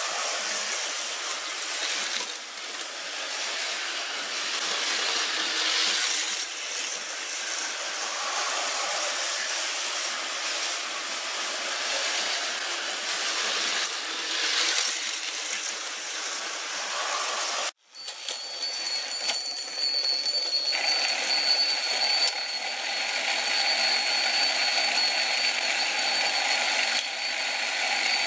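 Tyco US1 slot-car trucks' small electric motors whirring as they run around the plastic track, the sound swelling and fading as they come and go. After a sudden break a little over halfway in, a steadier whir follows with a thin high-pitched whine over it.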